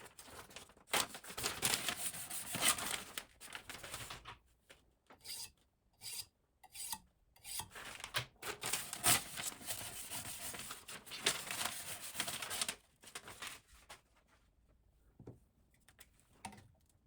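Silicon carbide oil stone rubbing over a knife's steel edge in sharpening strokes. Two long stretches of steady scraping, with shorter strokes between them, then only faint scrapes near the end.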